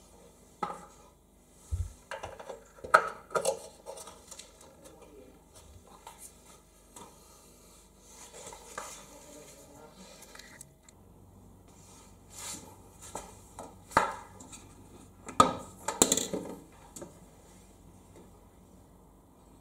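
Hard plastic knocks and clicks from the salt reservoir of an Indesit DIE 2B19 dishwasher being handled in its stainless-steel tub: the salt funnel lifted out and the reservoir cap screwed shut. The clicks come in two clusters, one in the first few seconds and another about two-thirds of the way through.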